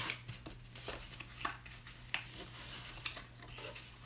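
Cardstock being folded and handled by hand: faint, scattered rustles and light taps of stiff paper, over a low steady hum.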